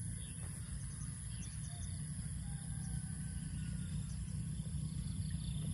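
Faint outdoor rice-field ambience: a low steady rumble of wind on the microphone, with faint insect chirring and a couple of faint distant calls around the middle.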